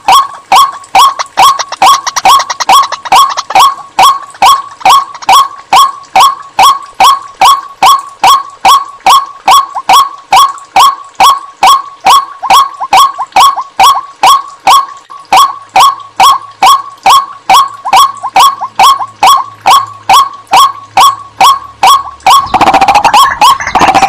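White-breasted waterhen calling, a single harsh 'kwak' note repeated monotonously about two to three times a second. Near the end it breaks into a louder, denser jumble of calls.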